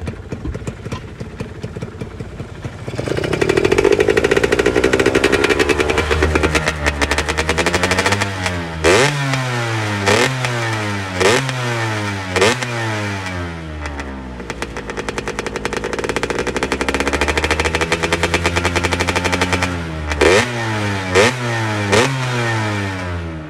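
Yamaha F1ZR's two-stroke engine breathing through an EL9 Racing aftermarket exhaust, revved on the stand. It idles, rises to a long held rev about three seconds in and falls back, then is blipped four times in quick stabs, each rising sharply and dropping away, with three more blips near the end.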